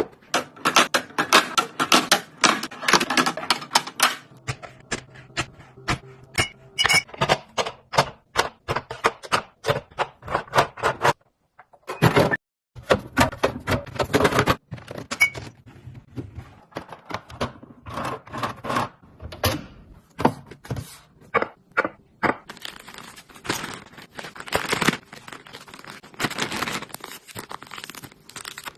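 Plastic storage boxes and food packages being handled and set down while a refrigerator is organized: a dense run of clicks, knocks and light scrapes, with a short pause near the middle.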